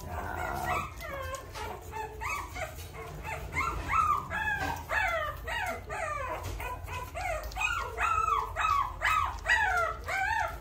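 Three-week-old American Bully puppy whimpering and crying in a rapid run of short, high cries that rise and fall in pitch, about two or three a second, growing louder after the first few seconds.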